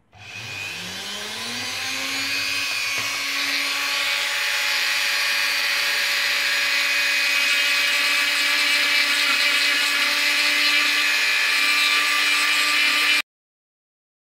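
Small handheld rotary tool (mini drill) spinning up over about two seconds, then running with a steady whine as its bit drills into a copper stripboard; the sound cuts off abruptly near the end.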